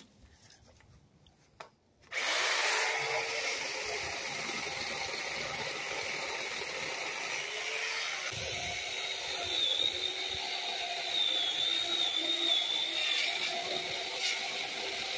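Small chainsaw starting up about two seconds in, then running steadily as it cuts into a fallen tree limb, with a wavering high whine over the motor.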